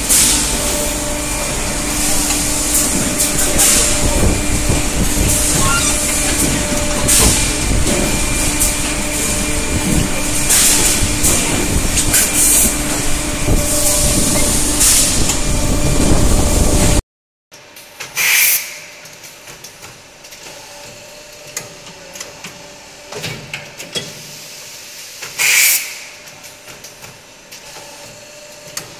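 Automatic multi-station hydraulic deep-drawing presses for pots and pans running: a loud, steady machine hum with frequent short hisses of air and clanks. About two-thirds through, the sound drops to a single, quieter press, with two sharp air hisses about seven seconds apart and light clicks.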